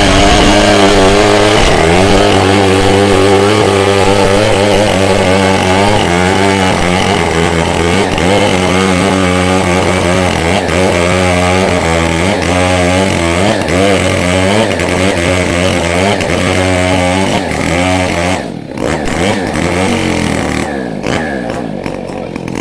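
Chainsaw running at high revs while cutting coconut wood, its pitch wavering under the load. About 18 seconds in, the sound drops suddenly and the saw runs on more weakly and unevenly.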